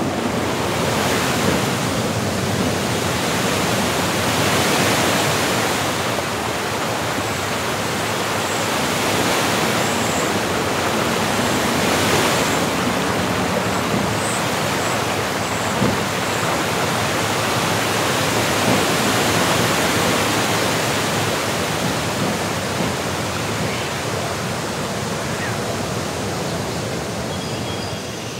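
Rushing white water of a mountain stream and waterfall: a loud, steady wash of noise that swells and eases gently. A few faint high chirps about a third of the way through.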